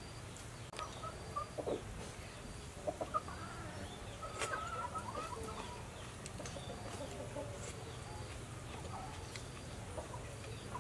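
Domestic chickens clucking, short calls coming in scattered clusters, busiest about four seconds in.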